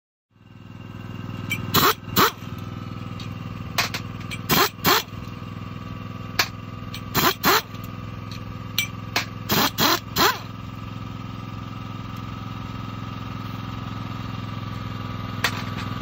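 Pneumatic wrench on an air hose, run in short bursts, mostly in quick pairs, as it drives the nuts that hold new sickle sections onto a combine header's cutter bar. A steady engine drone runs underneath.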